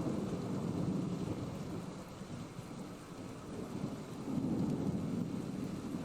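Low rumbling noise, swelling near the start and again about four and a half seconds in.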